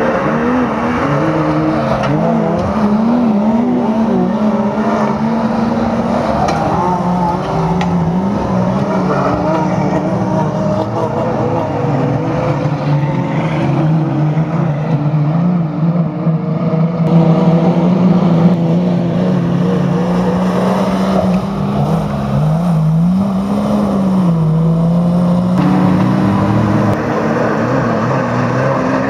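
Old GAZ-51 race trucks' engines revving hard, the pitch climbing and dropping again and again as they accelerate, shift and pass. The loudest moment comes a little past the middle.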